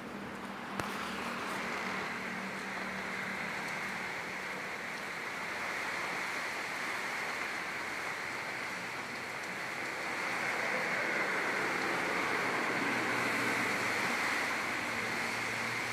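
Strong wind blowing, a steady rushing noise that grows a little louder about ten seconds in, with a single click about a second in.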